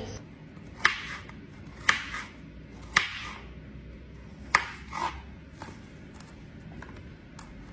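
Kitchen knife slicing through fresh ginger onto a plastic cutting board: about five sharp chops roughly a second apart, then a few fainter taps near the end.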